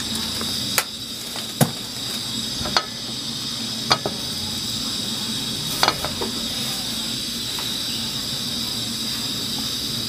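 A steady, high chirring chorus of insects, with about five sharp clicks or pops spread through the first six seconds.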